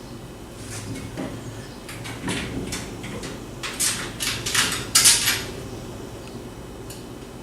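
Metal clinking and scraping as bolts, washers and nuts are fitted through the holes of metal treestand platform sections. The clinks come in a quick run about four to five seconds in, the loudest just after five seconds.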